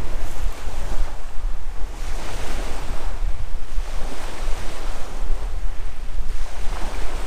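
Sea waves washing against the shore in irregular surges, with strong wind rumbling on the microphone.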